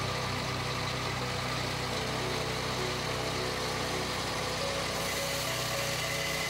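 Engine of a Turbosawmill Warrior Auto swing-blade portable sawmill running steadily at an even level.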